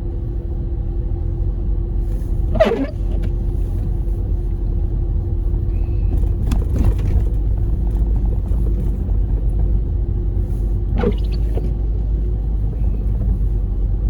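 Steady low rumble of a car driving, heard from inside the cabin, with a faint steady hum over it. A few short, brief sounds break in about three, seven and eleven seconds in.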